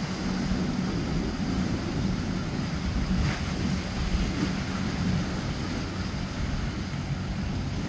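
Sportfishing boat's engine running steadily as it motors past, a low even hum, mixed with wind on the microphone and the wash of its wake.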